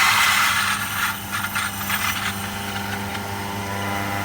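Small electric motor running steadily, a hum with a noisy hiss over it, that stops suddenly near the end.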